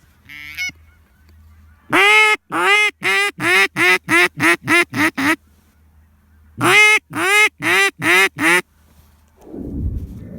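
Canada goose honks: a fast run of about a dozen evenly spaced honks, a short pause, then a run of about six more. A low rumble comes in near the end.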